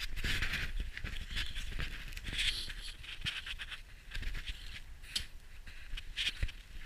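Footsteps crunching through snow: an irregular string of crisp crunches and scrapes with a few sharper clicks.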